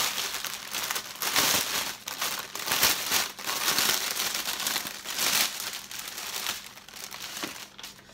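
Plastic packaging around diamond-painting drill sachets crinkling as it is handled and opened, in a run of rustling bursts that thin out near the end.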